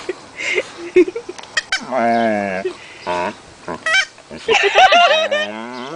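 Rubber-bulb bicycle horn squeezed by a dog biting the bulb, giving short honks: a long one about two seconds in and another, fuller one about five seconds in.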